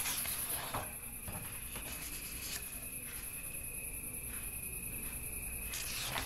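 A steady, high-pitched cricket-like trill runs under a thin steady tone, with a few soft rustles as book pages are turned, one near the start and again near the end.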